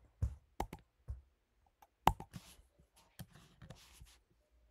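Irregular clicks and taps from operating a Mac computer, the loudest about two seconds in, with two brief soft rustles in between.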